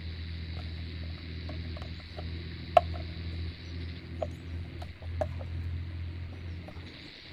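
Small sharp clicks and taps of needle-nose pliers and a tiny metal door handle against a PVC model cabin door, the loudest about three seconds in, over a steady low hum.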